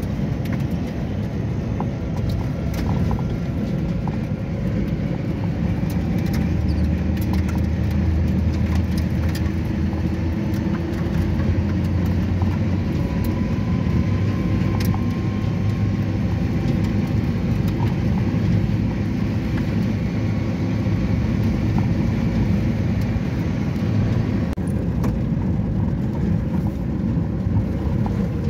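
Motor vehicle driving: a steady low engine and road rumble.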